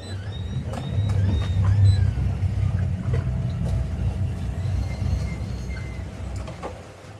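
Motorboat engine running with a low rumble: it builds about a second in and eases off toward the end as the boat is manoeuvred close alongside.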